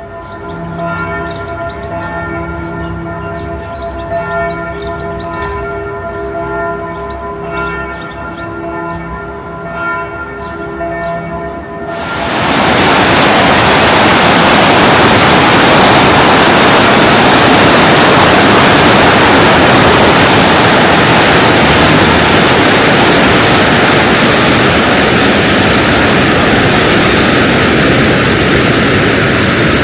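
Church bells ringing with steady, overlapping tones for about twelve seconds. Then a loud, steady rushing noise suddenly drowns them out and continues.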